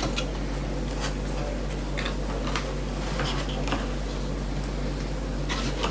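Light rustles and small clicks of a small cardboard box and its packaging being handled as a brushless RC motor is taken out, a few scattered handling sounds over a steady low hum.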